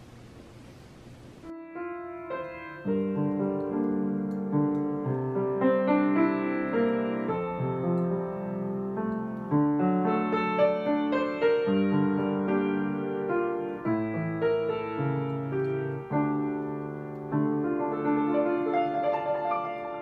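Background piano music, a gentle piece of changing chords, starting about a second and a half in after a brief faint hiss.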